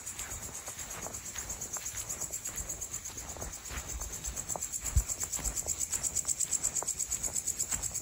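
Night insects trilling in a fast, steady pulse, with footsteps on grass and soil underneath and a single thump about five seconds in.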